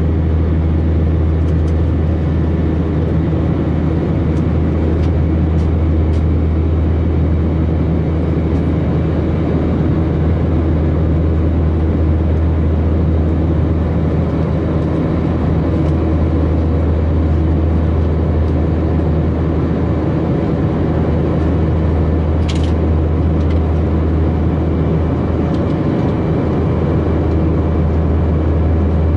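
Steady cabin drone of an Airbus A319 in its climb-out, its IAE V2522-A5 turbofan engine just outside the window running evenly with a deep hum and a few steady tones. A single faint click comes about three quarters of the way through.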